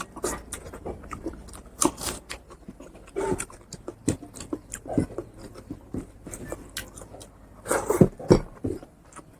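Close-miked chewing and lip smacking of a person eating fatty pork curry with rice: irregular wet clicks and smacks, with a couple of louder bursts of chewing about three seconds in and near the end.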